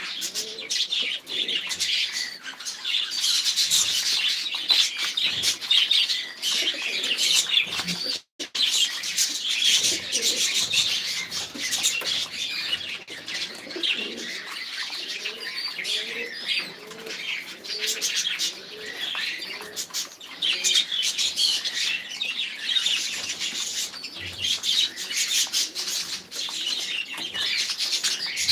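A crowd of caged birds calling together: many small birds chirping steadily, with pigeons or doves cooing over and over underneath.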